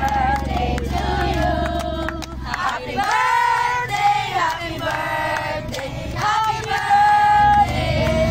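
A group of people, mostly women, singing a birthday song together with long held notes and clapping along. A steady low hum underneath drops out about three seconds in and returns near the end.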